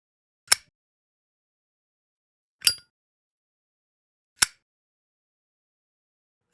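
Zippo lighter clicking: three separate sharp metallic clicks with a brief ringing, about two seconds apart.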